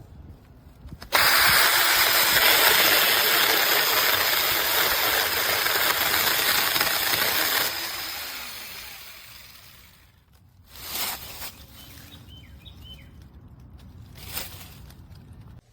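Seesii cordless mini chainsaw (a small battery electric chainsaw) starting abruptly and running loudly for about six and a half seconds, then winding down and fading out, with a few faint knocks afterward.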